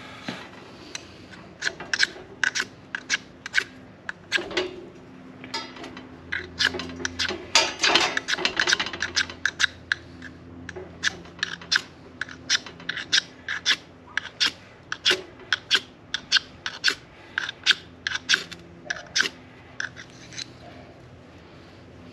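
Repeated sharp scrapes of a striker dragged down a ferro rod, throwing sparks to light a fire starter under a charcoal chimney. There are dozens of quick strokes in irregular bunches, thickest around the middle, and they stop shortly before the end.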